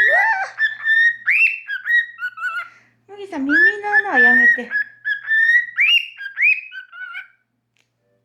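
Cockatiel whistling a tune in short phrases of clear notes with rising slides, stopping near the end. A lower, falling note comes in about three seconds in.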